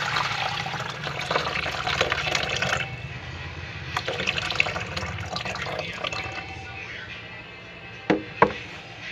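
Water splashing as hands swish chopped green beans and a carrot in a basin, rinsing them, in spurts during the first few seconds and again around the middle. Two sharp knocks near the end.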